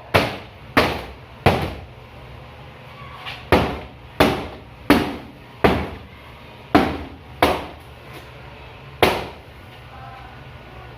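Hammer blows knocking apart a broken cabinet: about ten sharp strikes, each ringing briefly, in runs of three or four roughly two-thirds of a second apart with short pauses between, stopping a little past halfway.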